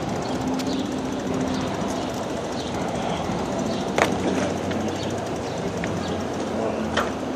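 Wheels rolling over a concrete sidewalk: a steady rumble, with two sharp clicks about four and seven seconds in.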